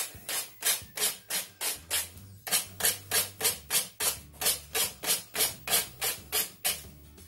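Fine sandpaper rubbed back and forth along the edge of a decoupaged drawer front, about three to four quick strokes a second, with a short pause about two seconds in. The sanding cuts away the excess napkin paper overhanging the edge.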